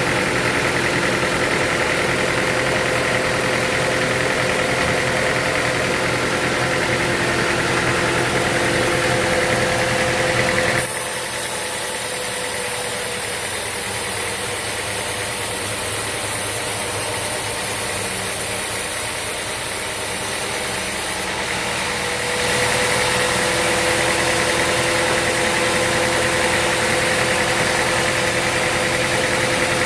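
Sawmill machinery running steadily, with a constant motor hum. About 11 seconds in, the sound abruptly becomes a little quieter and duller, then returns to the first sound about 22 seconds in.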